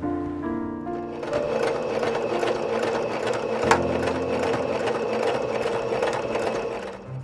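Domestic electric sewing machine stitching a seam at a steady speed, its needle mechanism rattling rapidly; it starts about a second in and stops just before the end, with one sharp click near the middle.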